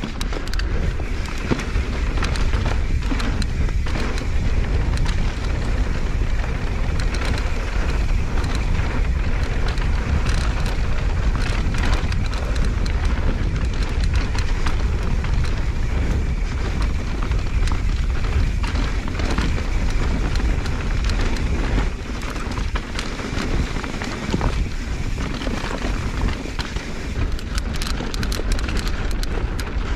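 Mountain bike riding down dry dirt singletrack: steady wind rumble on the camera microphone and tyre noise on the dirt, with frequent rattles and clicks from the bike jolting over bumps.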